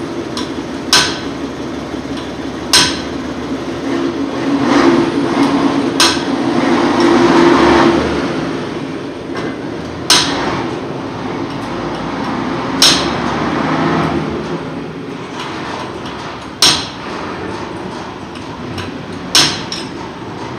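A hammer striking metal at a truck's rear wheel hub, about seven sharp blows a few seconds apart, over a steady background hum that swells for a few seconds between the first blows.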